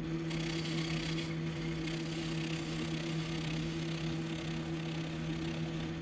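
Metal lathe running steadily, its motor and gearing giving a low, even hum. About a third of a second in a higher hiss joins it: the turning tool cutting the rough cast nose piece of a die grinder to true up its taper.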